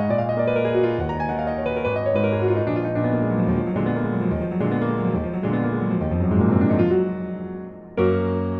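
Piano music playing runs of notes, ending on a loud chord struck near the end.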